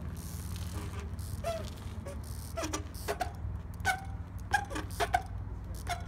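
Monty 20-inch trials bike being hopped about on concrete curbs: a scatter of short squeaks and knocks from its brakes, tyres and frame, over a steady low rumble.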